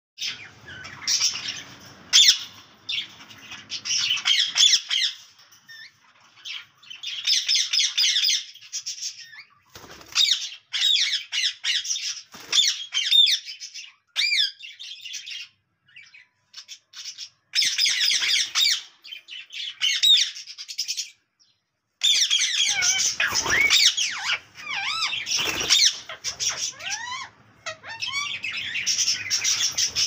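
White ringneck parrot calling in rapid bursts of shrill squawks and chirps, broken by short pauses, with a few lower falling calls and some low bumps in the second half.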